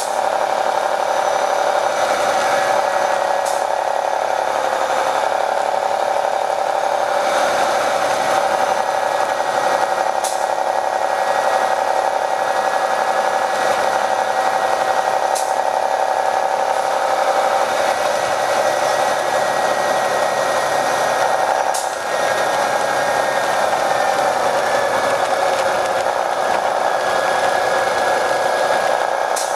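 Detroit Diesel Series 60 engine and Allison B500R transmission of an MCI D4500 coach heard from inside the moving bus: a steady whining drone with a few faint ticks and one brief dip about three quarters through. The recording has been filtered to suppress passengers' talk, which leaves it thin, without bass.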